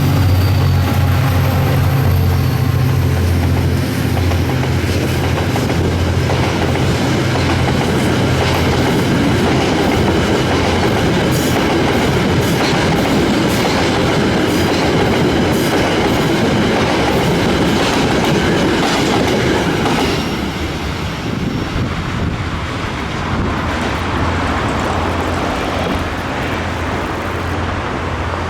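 Freight train passing close by, its wagons rolling with repeated clickety-clack of wheels over the rail joints over a steady low drone; the rolling noise eases off about two-thirds of the way through.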